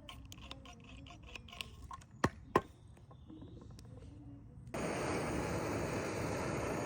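Light clicks and taps of handling, with two sharp clicks about two seconds in, then a steady hiss that starts suddenly a little before the end.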